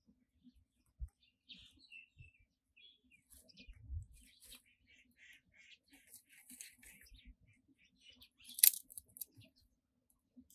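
Faint small-bird chirps in the background, with soft knocks of dry sticks being handled and fed into a clay wood stove. One sharp crack, the loudest sound, comes about a second and a half before the end.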